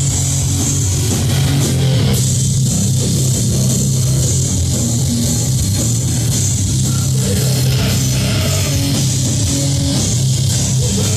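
Doom metal band playing live: distorted electric guitar and bass holding long, low notes over drums and cymbals.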